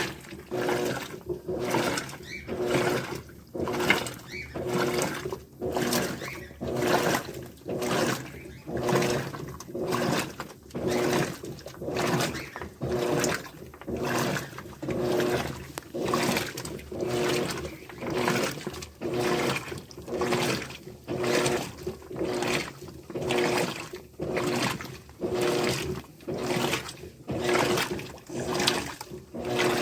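Electrolux LTD13 top-loading washing machine agitating a load: water swishes back and forth in rhythmic strokes about once a second over a steady motor hum.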